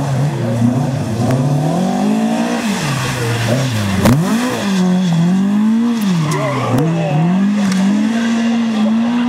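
Ford Escort Mk2 historic rally car's engine revving hard, its pitch climbing and then dropping again and again through gear changes and lifts off the throttle. About four seconds in there is a quick swoop down and back up as it passes close.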